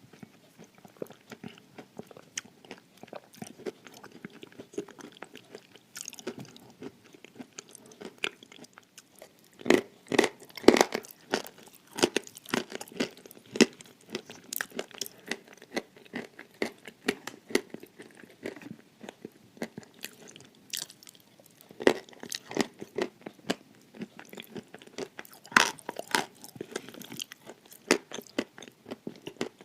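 A person biting and chewing pieces of dry edible clay close to the microphone: a steady run of crisp crunches, with louder clusters of bites about ten seconds in, a little after twenty seconds, and around twenty-six seconds.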